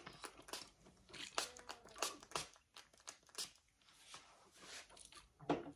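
Hands working through a toddler's thick curly hair close to the microphone, giving irregular soft crackling and rustling.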